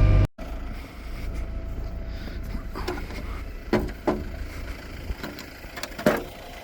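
Farm tractor engine running steadily and fairly quietly, with a few short sharp knocks about three, four and six seconds in.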